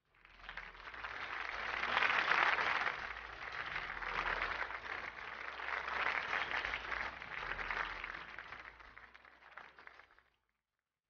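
Audience applauding, swelling over the first two seconds, rising again around six seconds in and dying away near the end.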